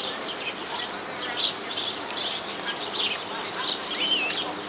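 European greenfinch singing: a run of quick, high twittering notes, with a wavering gliding note about four seconds in.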